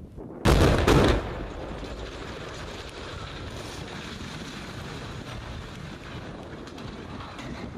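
Demolition charges going off at a concrete tower: two sudden loud reports about half a second apart, near the start, followed by steady noise as the tower collapses and its dust cloud spreads.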